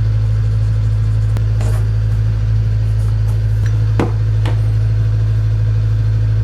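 A loud, steady low mechanical drone, like a machine running or idling, with a few light knocks over it, about a second and a half in and again around four seconds in.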